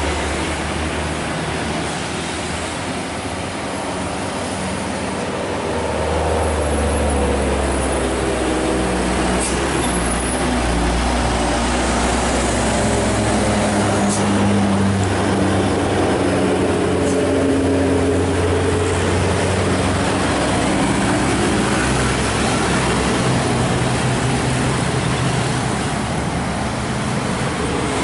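Diesel engines of buses and trucks driving past at close range, the engine notes rising and falling in pitch as each vehicle passes, over steady road noise.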